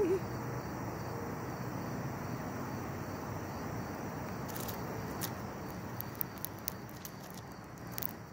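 Faint steady outdoor background of insects buzzing, with a run of light clicks and taps from about four and a half seconds in as the camera is handled.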